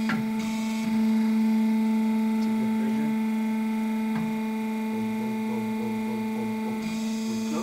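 Hydraulic power unit's electric motor and pump running with a steady hum, while valves on the training bench are worked: a short hiss near the start and light clicks about two and a half and four seconds in.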